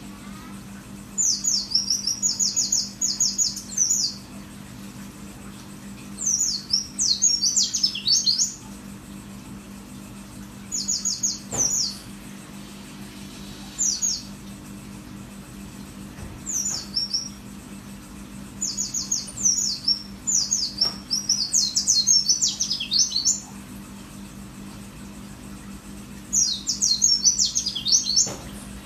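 White-eye (pleci) singing its rapid, high 'wit wit wit' notes, each sliding downward. The notes come in bursts of one to three seconds, separated by pauses of a few seconds, over a steady low hum.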